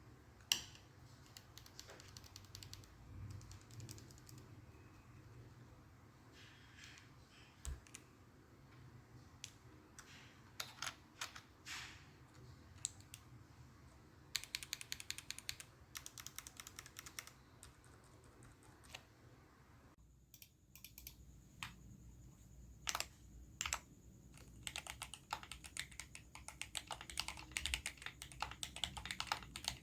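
Keystrokes on a GMMK Pro mechanical keyboard fitted with factory-lubed Amerteer Jade linear switches on an aluminium plate. Scattered presses come first, then a quick run of keys about halfway, then fast steady typing near the end.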